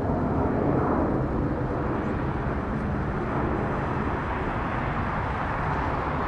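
Jet airliner engines: a steady rumble that fades slightly.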